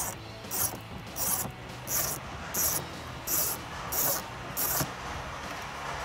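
A 1/4-inch drive ratchet with a 7 mm socket backing out bolts, its pawl clicking in short rasps on each back-stroke, about one and a half strokes a second. The strokes stop a little before the end.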